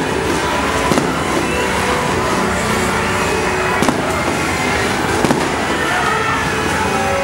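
Dense, steady din of many firecrackers going off at once, with a few louder single bangs standing out.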